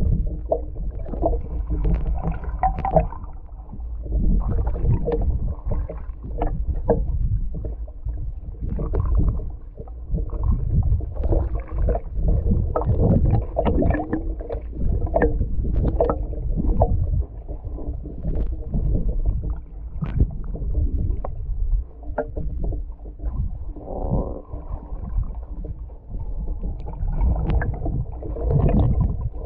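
Muffled sound of water heard from below the surface: a constant low rumble of water moving around a wading person, with frequent small knocks and clicks.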